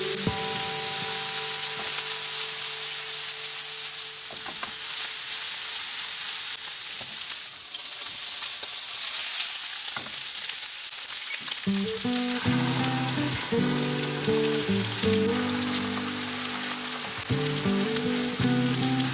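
Food sizzling in a hot frying pan as eggplant, pork and vegetables are stir-fried for nasu miso itame; from about twelve seconds in, background music plays over it.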